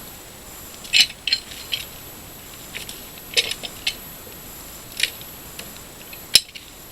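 Pallet Buster steel pallet-breaker bar prying a slat off a wooden pallet: a series of sharp metallic clinks and knocks from steel and wood, the sharpest crack near the end.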